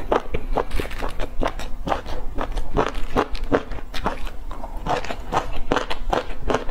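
Close-miked chewing of pan-fried stuffed flatbread: a quick, even run of wet mouth clicks and soft crunches, about three or four a second.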